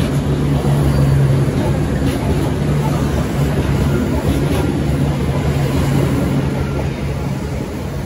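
V/Line VLocity diesel multiple unit pulling out past at close range: a steady low drone from its underfloor diesel engines under wheel and rail noise. It eases a little near the end as the rear of the train draws away.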